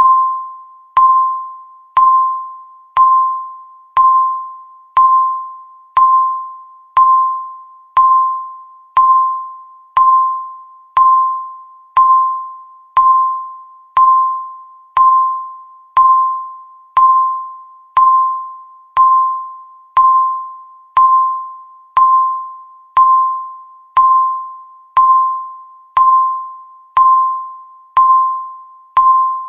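Countdown timer beeping once a second: a single electronic tone that starts sharply and fades away before the next beep.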